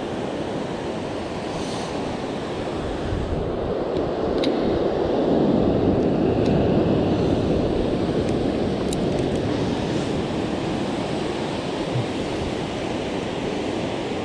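Ocean surf washing up the beach, with wind on the microphone. A wave surges louder about four seconds in and then eases off. A few faint clicks are heard around the middle.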